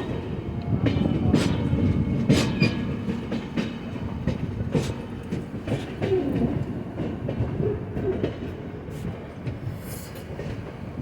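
Indian Railways passenger train running into a station, its carriages rumbling steadily, with irregular sharp clacks of the wheels over rail joints and points.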